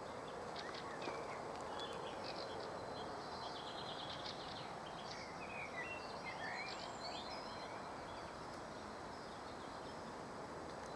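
Songbirds chirping and trilling, several short calls and rapid rattling trills, busiest in the first half, over a faint steady background of outdoor noise.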